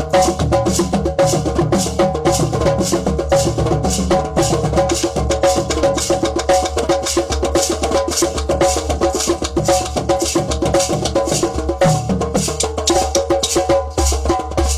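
Drum circle of hand drums and hand percussion playing a fast, steady, dense rhythm.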